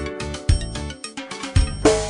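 Instrumental speaker-test demo music with a heavy mid-low mix: deep bass drum hits about once a second under sustained pitched tones, and a bright crash near the end.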